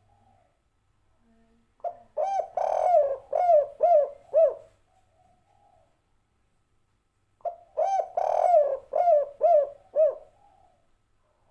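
Spotted dove (tekukur) cooing: two song phrases about six seconds apart, each a quick series of five or six rounded coo notes.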